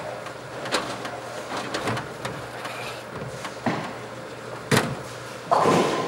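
Bowling alley ambience: a steady mechanical hum from the ball return, with scattered hard knocks and clacks over it. The loudest knock comes a little before the end, and a longer clatter follows right at the end.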